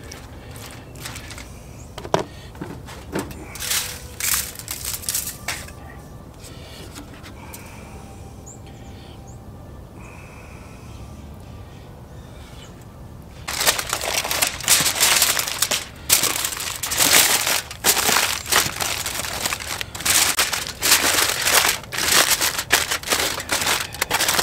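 Aluminium foil crinkling and crumpling as it is folded tightly around a rack of spare ribs, loud and continuous from about halfway through. Before that, only a few soft taps and clicks.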